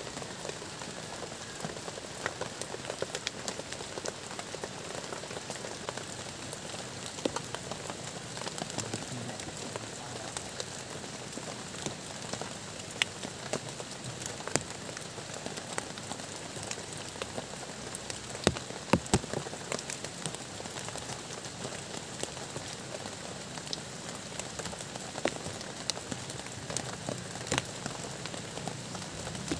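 Steady rain pattering on a plastic tarp shelter overhead: an even hiss with many sharp individual drop taps scattered through it.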